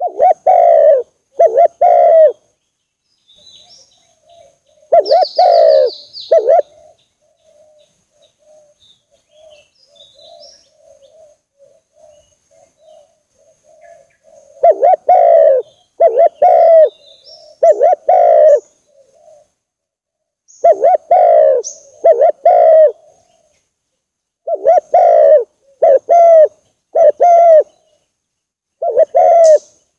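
Spotted dove cooing: phrases of two to four low coos repeated every couple of seconds, with a long pause about a quarter of the way in. Faint high chirps of small birds sound behind it.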